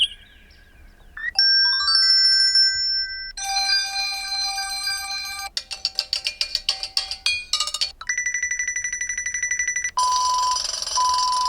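Google Pixel 6 ringtones playing one after another, about six short electronic clips, each cut off abruptly as the next begins. A faint gliding tone gives way to a bell-like melody, then a bright sustained chord, fast repeated notes, a steady rapid trill, and near the end a brighter tune with short beeps.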